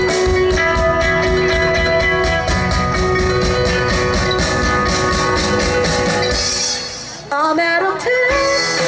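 Band playing a pop-rock cover with guitars and a drum kit on an even beat. Near the end the band drops out briefly while a single line slides up and down in pitch, then the full band comes back in.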